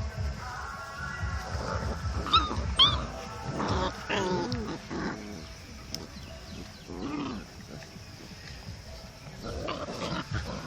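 A mother dog and her puppy playing, giving short high-pitched yelps about two seconds in, then lower whining calls that slide up and down in pitch.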